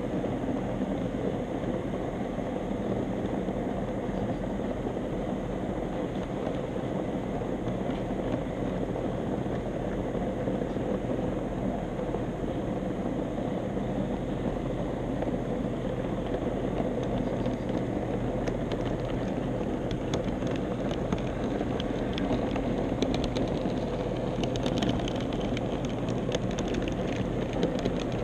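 HO-scale model streetcar running along its track: its small electric motor whirring steadily with a rumble of wheels on rail. From about two-thirds of the way in, a run of light clicks from the wheels on the track.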